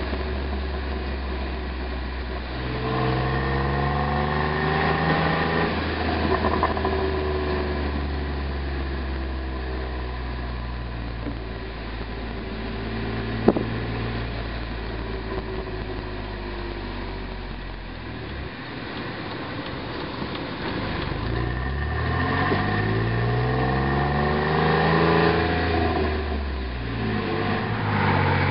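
Jeep Wrangler JK's 3.8-litre V6 through an MBRP aftermarket exhaust, pulling up through the gears with a rising note, then easing off. One sharp pop comes from the exhaust off throttle about midway, the popping that this exhaust is known for.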